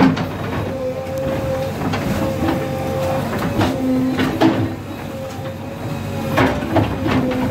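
JCB 3DX backhoe loader's diesel engine and hydraulics running with a steady whine while its backhoe bucket pushes down a brick wall. Several sharp knocks and crashes of bricks and concrete falling and striking break in at irregular moments.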